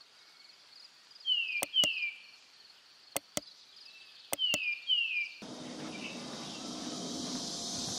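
Subscribe-button animation sound effect: six sharp mouse clicks mixed with two pairs of short falling chirps over near silence. About five seconds in, the steady high buzz of cicadas comes in and grows slowly louder.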